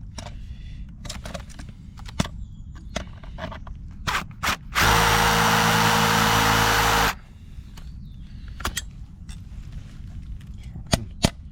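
Cordless drill-driver running steadily for about two seconds midway, between scattered clicks and knocks of handling tools and screws. Near the end a run of sharp taps starts, about three a second.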